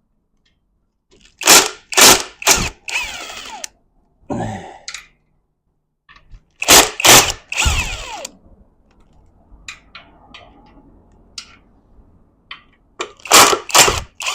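Sharp metal-on-metal hammer strikes in three groups of about three blows, each blow ringing briefly, while the bearing retainer screws on a Mazda M5R1 manual transmission are being worked loose.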